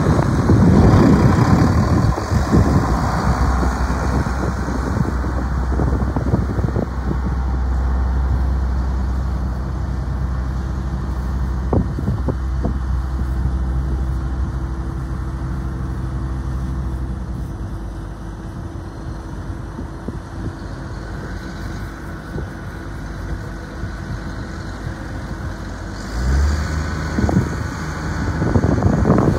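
Case IH 7120 Magnum tractor's six-cylinder turbo diesel engine running as the tractor drives away, its steady hum fading with distance. About 26 seconds in the engine pitch steps up as it revs.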